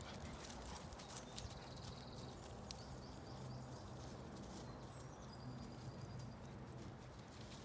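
Faint outdoor background: a steady low rumble with small birds chirping high and thin now and then (a short trill a little over a second in, a quick run of chirps around three seconds, more near six seconds), and scattered soft knocks.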